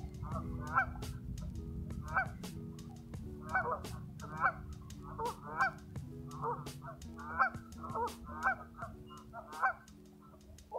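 Geese honking over and over in short, irregular calls, with wind rumbling on the microphone for the first several seconds.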